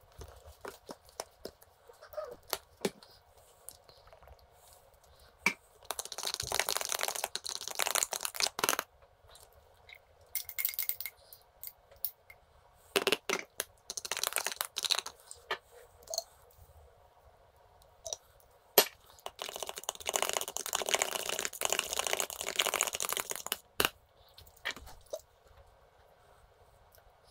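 Metal fork stirring and scraping inside a plastic tub, in three spells of a few seconds each, with scattered light clicks and clinks of the fork against the tub in between.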